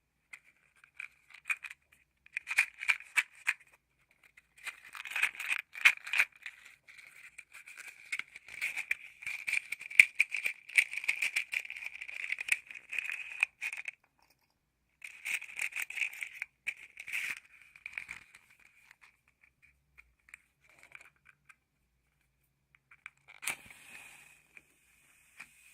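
Wooden matches rattling and clicking inside a matchbox as it is handled and shaken in bursts. Near the end a match is struck with a sharp scrape and hisses as it burns.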